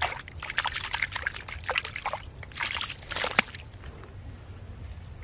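Hands digging and scooping in wet mud and muddy water, squelching and sloshing in irregular bursts. The bursts stop about three and a half seconds in.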